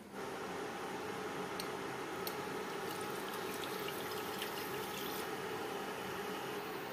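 Water poured from a pot into a nonstick frying pan, splashing for a few seconds, over a steady hum.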